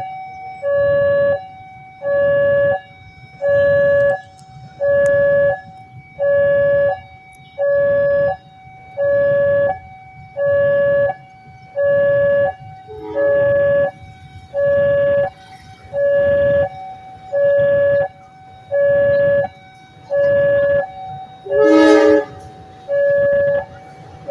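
Railway level-crossing warning bell: an electronic ding repeating about once a second, each ding a cluster of steady tones, sounding for an approaching train. A short horn note sounds near the end.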